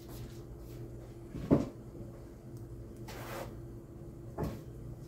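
Two knocks, the first and loudest about a second and a half in and a softer one near the end, with a short rustle between them, over a steady low hum.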